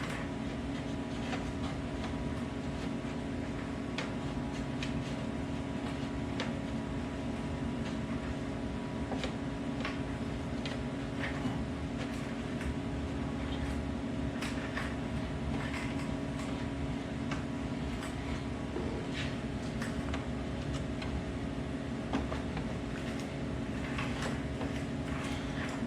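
A steady machine hum with several steady tones, with scattered faint clicks and taps over it.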